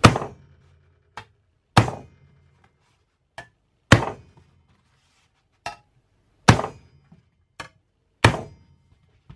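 Blocking hammer striking a sheet-steel panel on firm foam rubber matting: five heavy blows about two seconds apart, with lighter knocks between. Each blow stretches the metal near the edge and raises a tuck.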